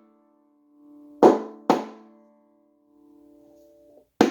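Two quick finger flicks on a banjo head about a second in, each a sharp drum-like pop followed by the strings ringing sympathetically and fading: almost all five strings resonate, the sign that the head is tensioned about where he likes it for clawhammer. Near the end, the first of a quick run of taps on the head begins.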